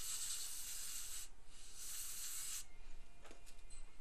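Dental air syringe blowing air to dry the implant site: a hiss that stops about a second in, then a second blast of about a second. A few faint clicks follow near the end.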